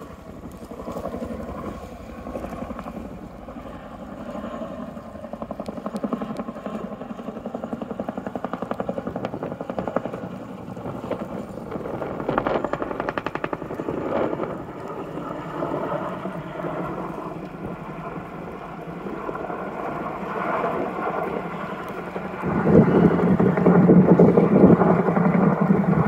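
Helicopter rotor chop, steady and fast-pulsing, growing much louder about 22 seconds in as the helicopter comes closer.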